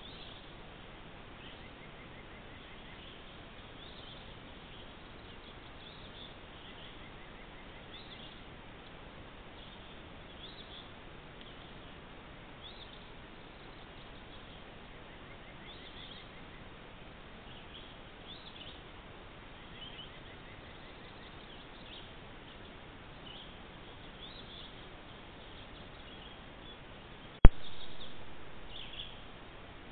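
Wild birds singing, short chirps again and again over a steady hiss from the trail camera's microphone. About 27 seconds in there is a single sharp click where one trail-camera clip ends and the next begins.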